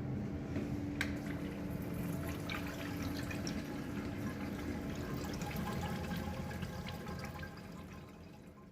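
Water running and splashing through a urinal as its repaired automatic sensor flush valve is switched on and tested, fading out near the end.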